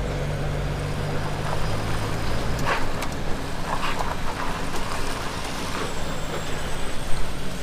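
Lorry (HGV) engine running, heard from inside the cab: a steady low hum that drops away about two and a half seconds in, followed by a few short knocks and rattles.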